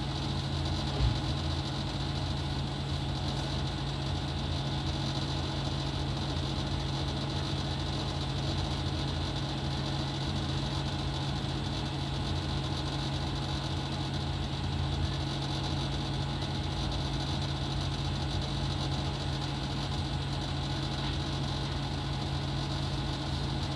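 Steady hum of an aquarium air pump, with a constant hiss of air bubbling up through the tank water. A brief knock about a second in.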